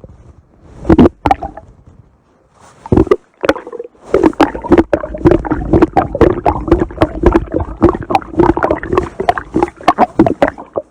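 Stomach growling and gurgling: a few separate gurgles at first, then from about four seconds in a long, dense run of rapid, irregular bubbling pops.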